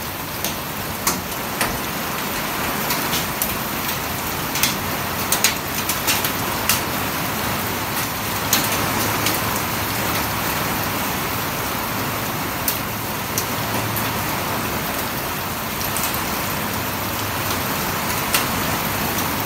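Heavy rain pouring steadily, with sharp ticks now and then as drops strike a nearby surface, most often in the first half.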